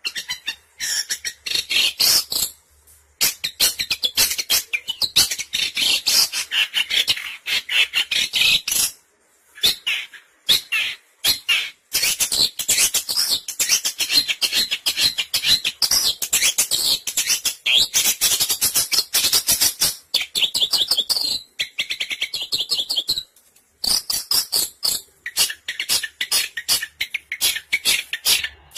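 Long-tailed shrike calls: fast, harsh chattering made of rapid sharp notes, in long runs broken by a few brief pauses.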